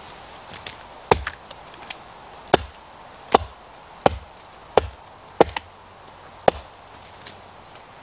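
Axe blows striking wood, about seven sharp hits spaced a little under a second apart, with a few fainter knocks between them.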